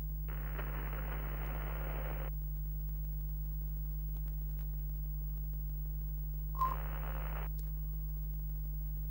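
Steady low electrical hum under an old-television test card, with two bursts of static hiss: one of about two seconds shortly after the start, and a shorter one about six and a half seconds in that opens with a brief beep.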